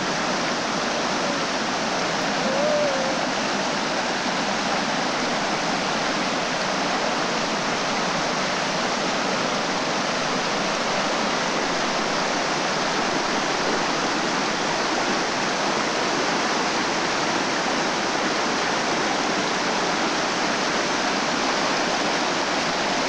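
Rushing mountain stream cascading over rocks: a steady, loud rush of white water.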